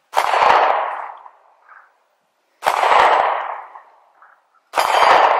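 Three single pistol shots from a Sig Sauer P320 Subcompact 9mm, about two to two and a half seconds apart. Each shot is followed by a metallic ring, from steel targets being hit.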